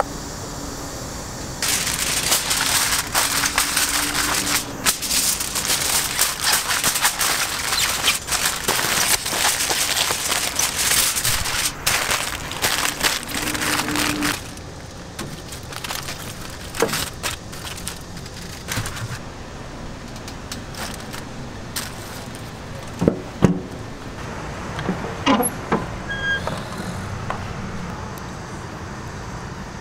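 Aluminium foil being crumpled and pulled open, a loud dense crackling that starts about two seconds in and stops abruptly after about twelve seconds. Afterwards only a steady low background hum remains, with a few scattered clicks and knocks.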